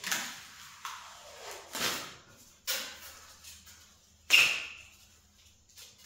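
Tools and metal parts being handled: a series of short knocks and clinks, the loudest a ringing metallic clink about four seconds in.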